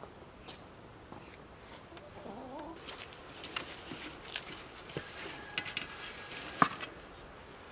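Hens clucking, with a rising call about two seconds in. There are also light clicks and taps as food is handled, the loudest a sharp tap near the end.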